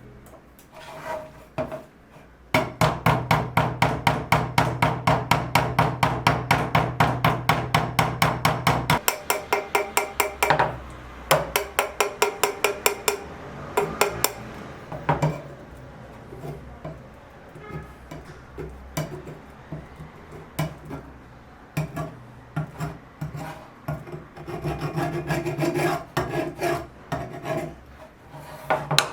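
A hand tool scraping wood in rapid, even back-and-forth strokes, like a rasp or file. The strokes then slow and become irregular, and a quicker run comes again near the end.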